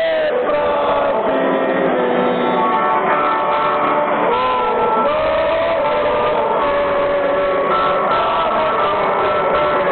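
Football stadium crowd singing together in long held notes, loud and unbroken.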